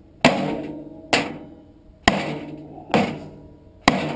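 Five hammer blows on a furnace blower motor and its sheet-metal squirrel-cage blower wheel, about one a second, each ringing on briefly. The blows are driving the stuck motor shaft out of the wheel's hub.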